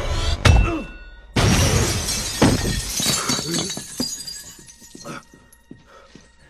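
A heavy thump, then about a second and a half in a loud crash of glass shattering, followed by pieces of glass clinking and settling as it dies away.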